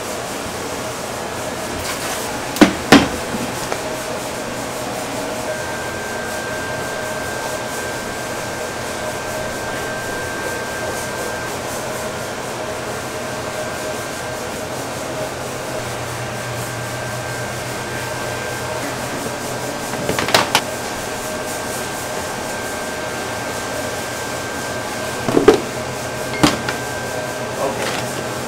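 Steady hum of kitchen machinery holding two even tones throughout. A few short, sharp knocks and slaps cut through it: two about three seconds in, one at about twenty seconds, and two near the end, as raw ducks are shifted and handled in a plastic tub.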